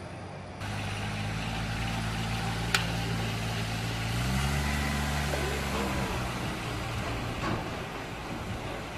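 Engine of a military off-road utility vehicle (side-by-side) running steadily, then revving up a little past four seconds as it drives up a steel ship's ramp, before fading as it moves away. A single sharp metallic click about three seconds in.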